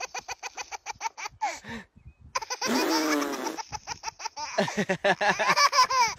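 Baby belly laughing in quick rhythmic bursts, with a brief pause about two seconds in, and a man laughing along.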